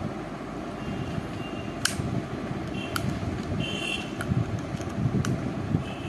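Small sharp plastic clicks, about four, spaced a second or more apart, as the battery cap of a small plastic wireless remote is worked off, over a steady low background hum. A few faint short high beeps come and go.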